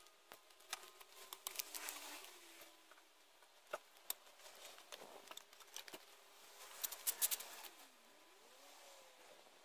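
Scattered knocks, clicks and gritty scrapes of hand work moving a concrete slab, with a denser run of sharp clicks about seven seconds in.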